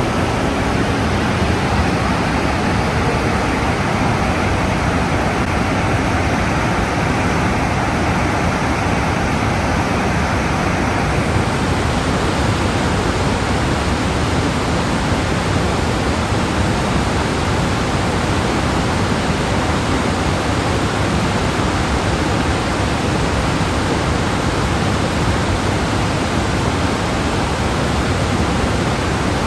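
Large waterfall swollen by recent rain, its falling water making a loud, steady rushing noise that gets a little brighter about eleven seconds in. The last notes of background music fade out in the first second.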